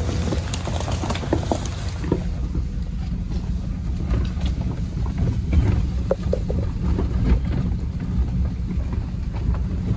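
Truck driving slowly over a rough dirt trail, heard from inside the cab: a steady low rumble of engine and tyres, with scattered knocks and rattles as it rolls over the bumps.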